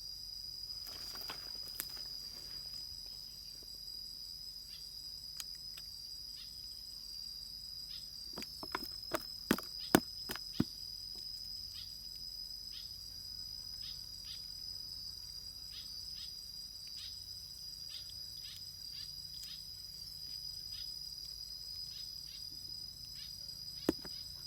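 Steady, high-pitched insect drone, with a quick run of sharp clicks about ten seconds in and one more near the end.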